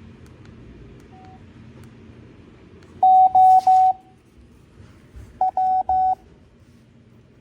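Morse code (CW) practice tones at 5 words a minute: a single steady mid-pitched beep keyed on and off, a faint short blip about a second in, then a group of three longer tones about three seconds in and a group of four about two seconds later. A brief scratchy rustle sounds during the first group.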